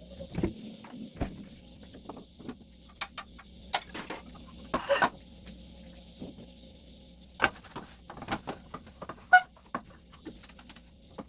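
Scattered knocks, clicks and clatter of household objects being handled and set down during cleaning, over a faint steady hum.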